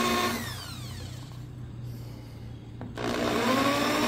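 Makita electric drill boring through thin EVA foam. The trigger is let go about a third of a second in and the motor spins down. It starts again about three seconds in, runs up to speed briefly and starts to wind down at the end.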